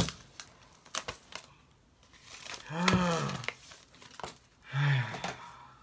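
Plastic wrapping on a smartphone box crinkling and tearing as it is stripped off, with a few sharp clicks. A short vocal sound rises and falls about three seconds in, and another comes about five seconds in.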